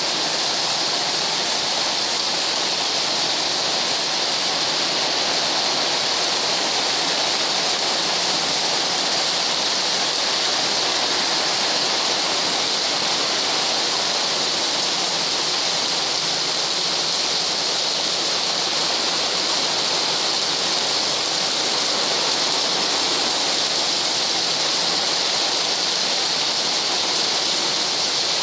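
Heavy rain pouring down steadily into a narrow alley, a constant even hiss of rain on wet pavement and walls.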